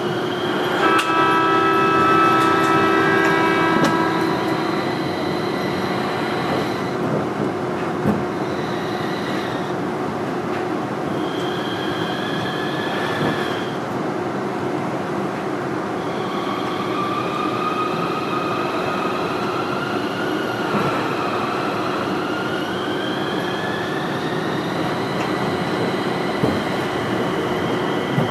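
Interior running sound of a Manyosen MLRV1000 low-floor tram in motion: steady rumble and hum, with whining tones that slowly rise and fall in pitch.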